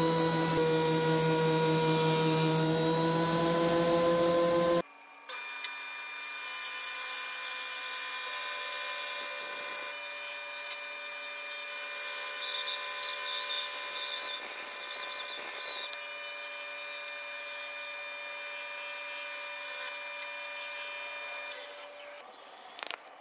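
A thickness planer running loud as a board is fed into it, its pitch dipping slightly under load. About five seconds in it cuts off, and a band saw runs more quietly, with its blade cutting through a wooden board until the sound drops away near the end.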